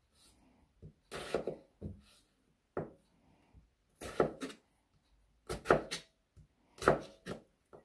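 A kitchen knife cutting small potatoes into pieces on a cutting board, the blade knocking on the board in irregular strokes about once a second.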